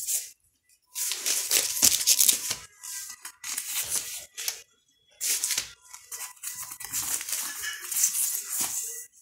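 Clear plastic outer sleeves and cardboard jackets of LP records rustling and crinkling as the records are flipped through one after another, in several bursts with short pauses between them.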